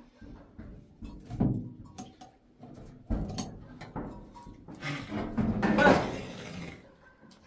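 Irregular knocks and thumps of a wooden pen partition and a forked wooden stick being handled, with a louder scuffle about five to six seconds in as someone climbs into a barn pen.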